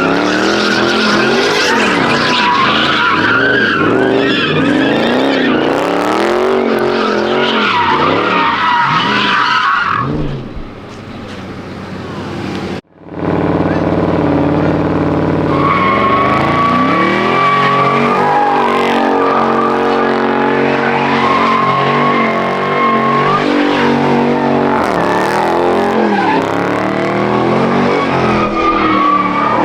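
A car engine revving hard while its tires squeal in a burnout or donuts, the engine note rising and falling under a high, continuous squeal. About 13 seconds in the sound cuts out for a moment, then the engine and squealing tires resume with a steadier note.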